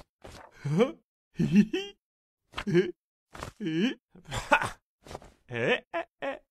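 Cartoon characters' voices in a run of short vocal phrases with strongly swooping pitch and silent gaps between them.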